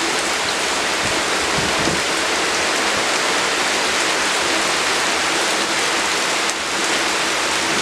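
Heavy monsoon rain falling steadily, an even hiss with no break.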